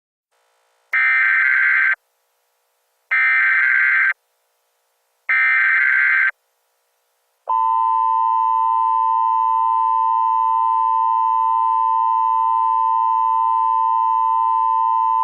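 Emergency Alert System SAME header: three one-second bursts of screeching digital data, about a second apart, then the steady two-tone EAS attention signal starting about halfway through. Together they mark the start of an emergency alert broadcast.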